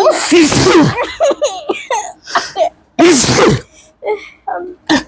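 Two loud sneezes, one right at the start and one about three seconds in, each with a falling pitch, and laughter between them. The sneezes are set off by sniffing nasal snuff powder.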